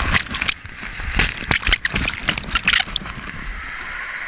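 Water rushing and splashing in quick, irregular bursts, muffled through a GoPro's waterproof case, as on a water slide run.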